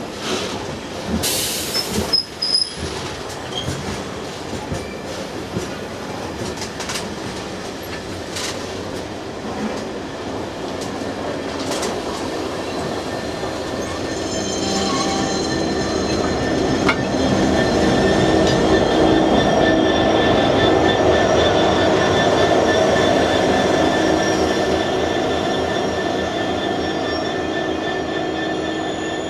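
Engineering freight train passing: the wagons' wheels rumble and click over the rail joints, then about halfway through it grows louder, with a steady, high wheel squeal as the rear of the train, ending in a GBRf Class 66 diesel locomotive, goes by.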